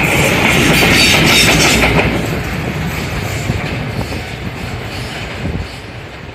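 Freight train wagons rolling past on the rails with a loud rumble and a high metallic ring from the wheels. The sound weakens from about two seconds in as the train draws away.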